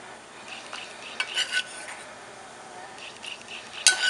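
A utensil clinking and scraping against a metal soup pot as chicken livers are added to the simmering broth: a few ringing clinks about a second in and a louder one near the end, over a faint steady hiss.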